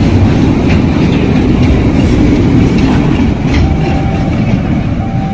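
Freight train of Pertamina fuel tank wagons rolling past close by: a loud, steady rumble of steel wheels on the rails, with wheels clacking over the rail joints about once a second.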